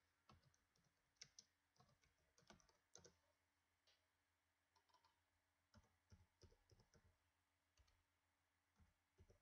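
Faint computer mouse clicks and keyboard keystrokes, irregular and scattered, as values are entered into software.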